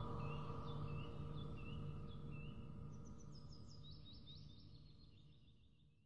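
End-of-video soundtrack: a low pulsing hum under a series of short bird chirps, then a rapid trill, the whole fading out to silence.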